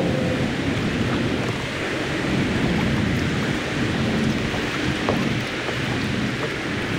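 Steady roar of highway traffic from the Route 128 overpass.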